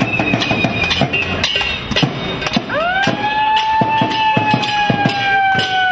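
Noise-protest drumming: sharp, evenly spaced beats, about three a second. About three seconds in, a long pitched tone joins them; it rises quickly, then sinks slowly.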